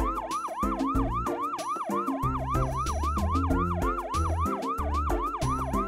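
Cartoon fire-engine siren sound effect in a rapid yelp, sweeping up and down about four times a second, over a children's music backing with a stepping bass line.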